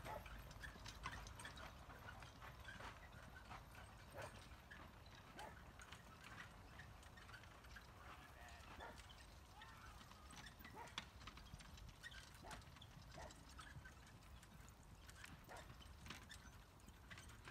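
Faint hoofbeats of a pair of horses trotting on grass while pulling a four-wheeled carriage: soft, irregular clicks and thuds over a low rumble.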